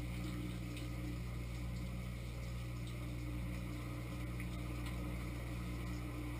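Dishwasher on its rinse cycle, heard from inside the tub: the wash pump motor hums steadily while water sprays from the spray arm against the rack and walls.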